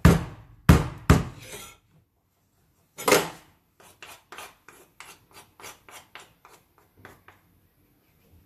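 A wooden spoon knocking, then scraping and tapping against a plastic bowl of seasoned chicken wings. Three loud knocks come in the first second or so and another at about three seconds, then softer strokes follow at two or three a second and die out near the end.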